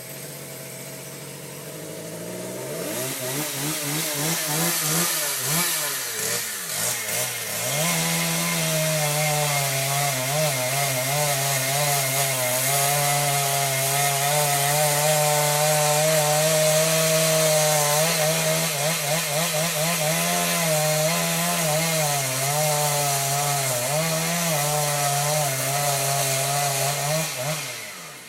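Chainsaw revving up and cutting into a maple trunk, its engine pitch wavering under the load of the cut, then easing off near the end.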